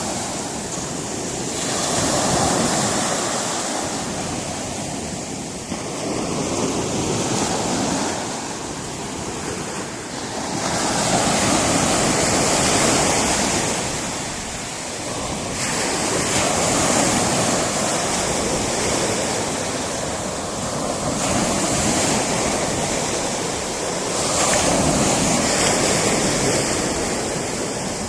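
Sea surf breaking on a rocky shore: a steady rush of water that swells and ebbs with each wave, about every four to five seconds.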